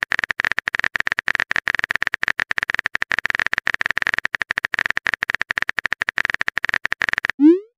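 Typing sound effect: a fast, even patter of keyboard-like clicks that stops shortly before the end.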